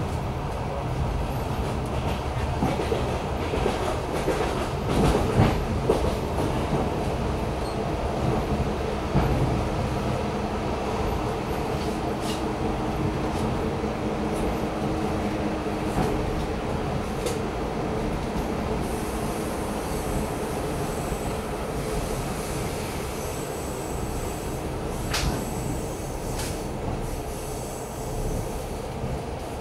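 Suburban passenger train running along the line, heard from inside a carriage: a steady rumble of wheels on rails with occasional clicks. A thin high squeal joins in about two-thirds of the way through.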